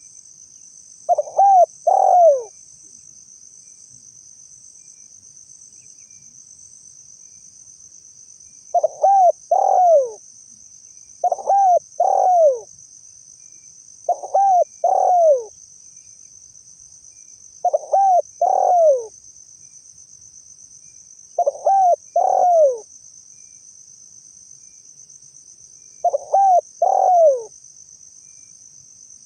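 Spotted dove (tekukur) cooing. Seven short phrases of two or three falling coos come every few seconds, with a long gap after the first, over a steady high drone of insects.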